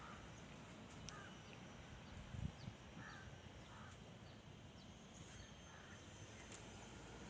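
Faint outdoor background with a few distant crow caws, short and spaced out.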